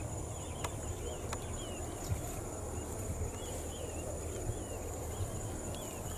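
Outdoor ambience: insects shrilling steadily at a high pitch, with short bird chirps repeated every second or so over a low rumble. Two sharp clicks sound about a second in.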